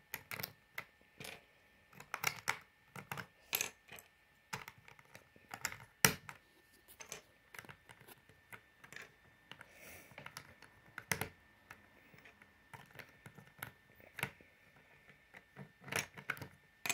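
Plastic Lego bricks clicking as they are handled and pressed onto a Lego baseplate: a scatter of irregular sharp clicks, the loudest about six seconds in.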